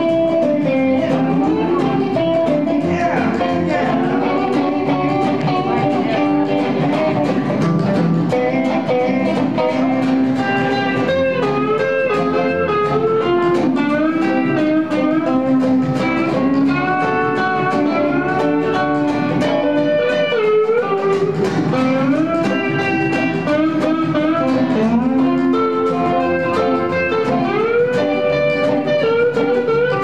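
Live country band playing an instrumental break on electric guitar, dobro, upright bass and acoustic guitar. The lead line slides between notes.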